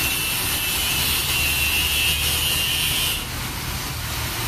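Steady mechanical background noise, a low hum with a high hiss that drops away about three seconds in.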